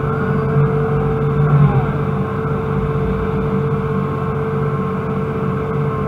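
Excavator's diesel engine and hydraulics running inside the cab, with a steady whine over the engine note. The engine swells briefly about a second and a half in as the loaded bucket is swung and dumped into a dump truck.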